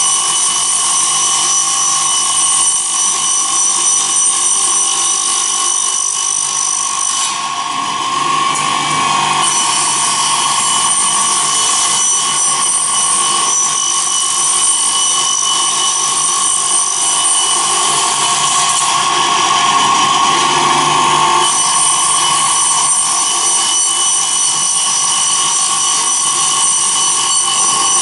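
CNC router's circular saw blade spinning and cutting: a steady whine over a continuous rasp. The sound shifts slightly about seven seconds in and again near twenty-one seconds.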